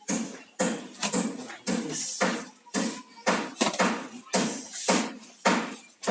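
Packaging and parts being handled while a box is unpacked: repeated short rustles and knocks, about two a second.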